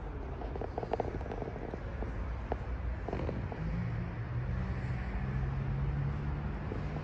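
Steady low rumble of indoor room ambience, with a few light clicks and a low hum that rises in steps from about three seconds in.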